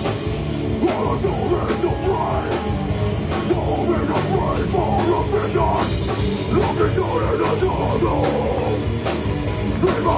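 A loud rock band playing live, a heavy song driven by a drum kit with regular strikes.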